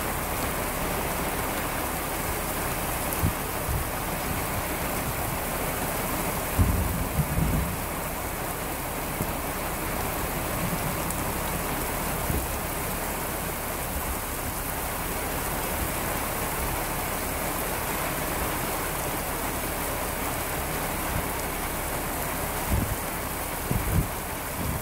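Heavy rain falling steadily on open ground, a constant hiss, with a few short low thumps about seven seconds in and again near the end.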